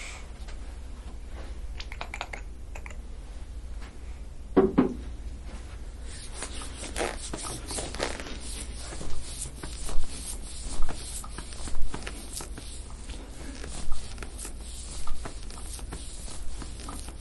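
Hands massaging and working a bare back, skin rubbing on skin, with a brief low sound about five seconds in. In the second half, short rasping strokes come about once a second over a steady low hum.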